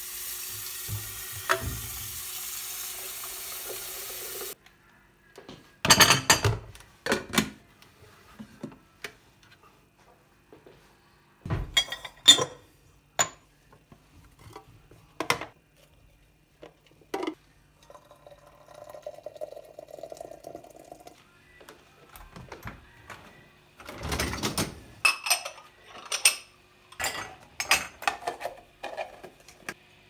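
A kitchen tap runs for about four seconds and cuts off. Then come scattered clinks and knocks of dishes, pans and cutlery being handled.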